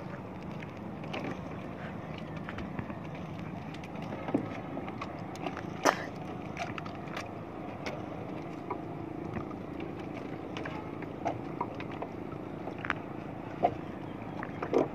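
Fishing net being hauled by hand out of the sea over the side of a wooden outrigger boat: water splashing and dripping off the mesh, with a few sharp knocks against the hull, over a steady rumble of wind and water.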